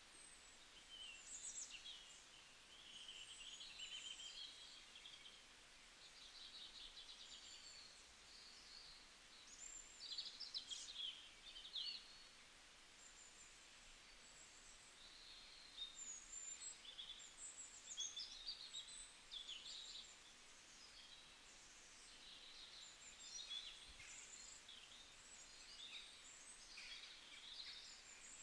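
Faint birdsong: small birds chirping and twittering in many short, high calls, scattered unevenly over a low steady hiss.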